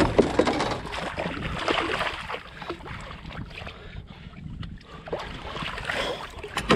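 Water splashing around a kayak and gear knocking on its hull while an angler fights a large bass and lands it, with many short knocks through it, busiest at first and again near the end.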